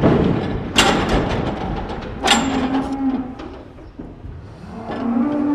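Holstein dairy cows mooing low during loading into a stock trailer: one call of about a second shortly after two seconds in, another starting near the end. Two sharp knocks, about a second and a half apart, come before the first moo.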